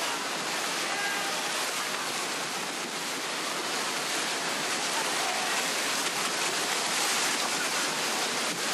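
Bluefin tuna trapped in an almadraba net thrash at the surface, making a dense, steady rush of churning, splashing water that swells a little past the middle.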